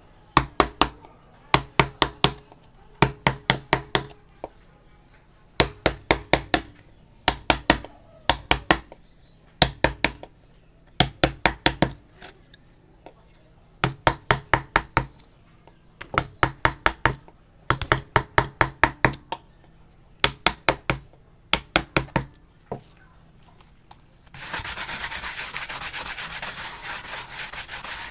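Carving chisel driven into wood by quick hammer taps, coming in bursts of four to six blows with short pauses between. About 24 seconds in, the tapping gives way to fast, steady rubbing strokes on the wood, like sanding.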